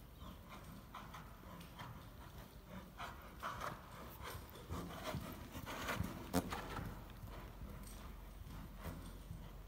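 Horse trotting on sand arena footing: a steady rhythm of hoofbeats, louder around the middle as the horse passes close, with one sharp click about six seconds in.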